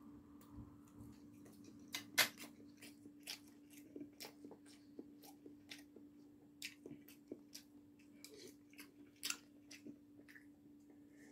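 Close eating sounds of cup udon noodles being eaten: chewing and mouth clicks, with scattered sharp ticks, the sharpest about two seconds in, over a steady low hum.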